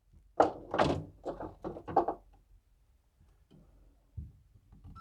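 A pencil marking the ceiling through the next mounting hole of a smoke detector base: about five short scratchy strokes in the first two seconds, then a couple of faint knocks near the end.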